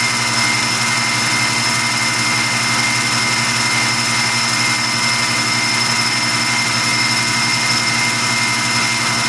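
Tormach PCNC 1100 mill running as a Duality lathe at constant spindle speed, turning an aluminum spike on a finish pass: a steady machine whine with several high tones over a hum.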